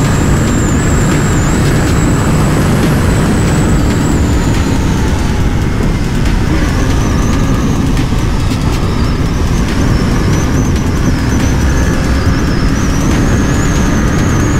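KTM RC 390's single-cylinder engine running at highway speed under loud, steady wind rush on the helmet microphone.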